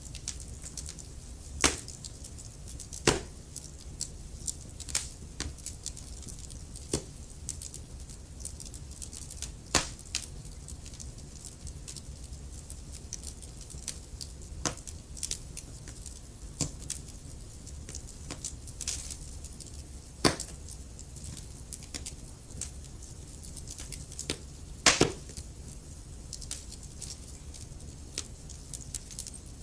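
Wood fire crackling in a fireplace: logs popping and snapping at irregular intervals over a low steady rumble of the flames, with a few louder pops.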